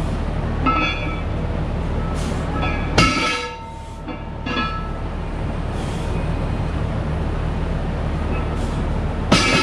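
Heavy loaded barbell touching down on rubber floor mats during deadlift reps, the iron-hubbed plates clanking with a short metallic ring, loudest about three seconds in and again near the end. A steady low rumble runs underneath.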